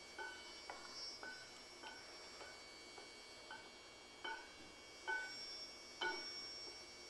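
Wooden spatula tapping and knocking against a frying pan while egg is stirred: a string of light, uneven taps, each with a brief ring. The clearest knocks come about four, five and six seconds in.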